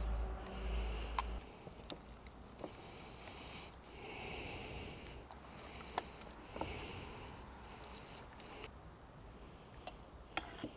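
Wet rubbing and smearing of green chimichurri being worked over a raw matambre beef cut in a dish, in short strokes that come and go, with a few light clicks. A low rumble runs through the first second and a half.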